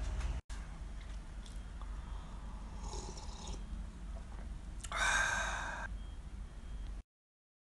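A man sipping soup from a glass, with a soft sip about three seconds in and a louder breathy sound about five seconds in, over the low rumble of a handheld phone's microphone.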